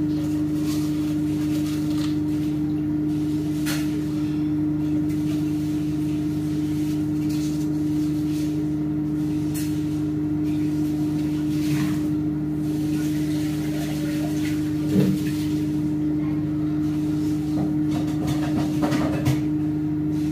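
A steady low electrical hum from a kitchen appliance or fan motor, with a few light knocks of metal cookware being handled.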